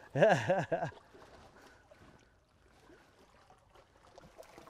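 A man's voice briefly at the start, then faint splashing and lapping of stream water as a hooked brown trout is held at the edge of the bank.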